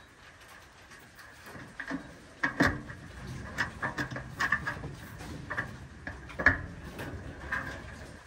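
Irregular knocks and clatters, with two louder bangs, one about two and a half seconds in and one about six and a half seconds in.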